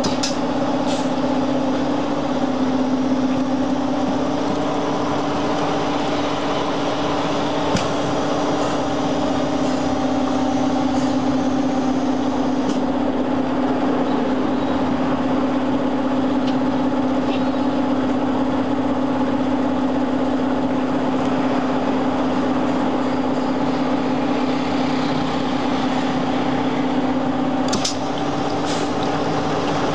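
Steady machine hum with a strong low drone and a few fainter higher tones, broken by a few light clicks.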